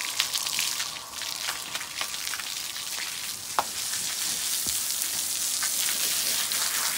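Water from a garden hose spraying onto a wet pinto foal's coat and splashing onto the concrete floor: a steady hiss with light patter.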